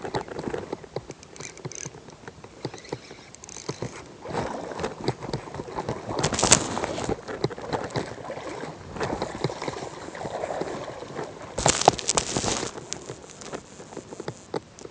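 Wading through shallow water: irregular sloshing and splashing steps, with two louder splashes about six and a half and twelve seconds in.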